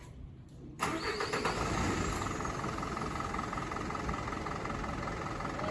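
Fire engine's engine being started: it turns over with a quick run of pulses about a second in, catches, and then runs steadily.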